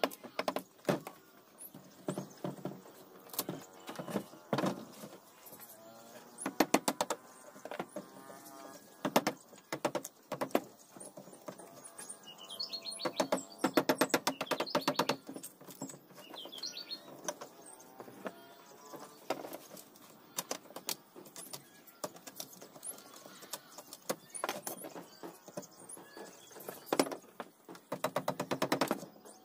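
Rubber mallet tapping on a wooden door frame in quick runs of several strikes each, with short pauses between the runs.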